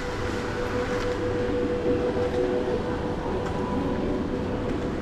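Singapore MRT train running, heard from inside the car: a steady rumble and hiss with a steady motor whine that fades about halfway through.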